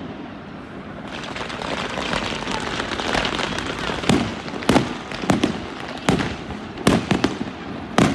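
New Year's fireworks display: a dense crackle of bursting shells builds from about a second in, then sharp booming bursts go off about every half second to a second.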